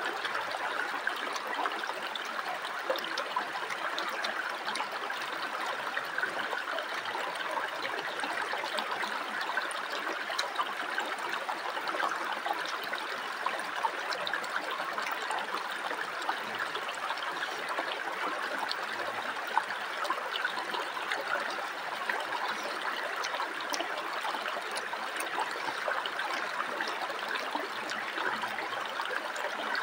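Shallow rocky river flowing steadily, a continuous rushing and trickling of water, with a few faint clicks here and there.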